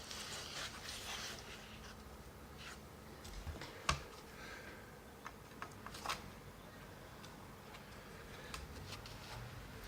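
Faint handling sounds while PC parts are worked on by hand: rustling in the first second or so, then a few light clicks and knocks, the sharpest about four seconds in and two or three more soon after.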